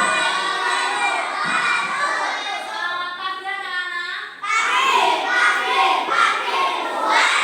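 A group of children shouting together, many young voices at once, loud throughout with a brief dip a little after four seconds.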